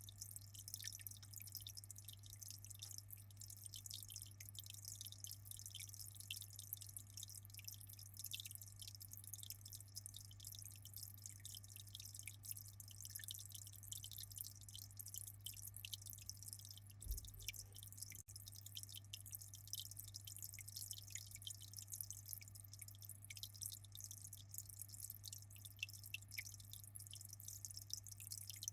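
Aquarium water trickling and splashing with many fine crackling droplets, over a steady low hum.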